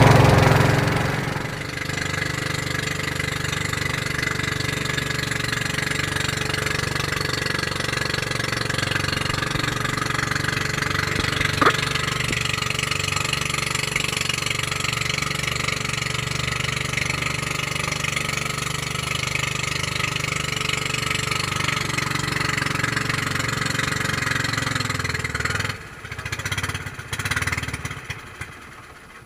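Small engine running steadily, with one sharp click about twelve seconds in. The engine sound drops away about twenty-six seconds in, leaving a few uneven bursts that fade out.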